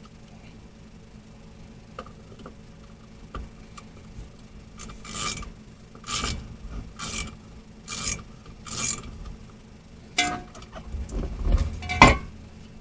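A wrench working the nuts and bolts off the vibrating plate of a Ford Model A klaxon horn: a run of five raspy strokes about a second apart, then a few sharp metal clanks near the end, the last the loudest.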